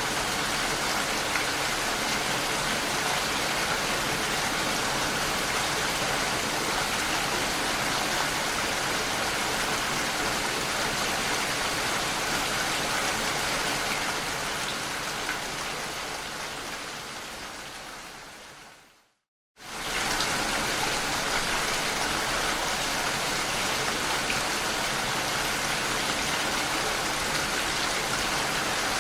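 Steady rain pattering on a window pane. It fades out about two-thirds of the way through to a brief moment of silence, then comes straight back at full strength, as at the seam of a looped rain recording.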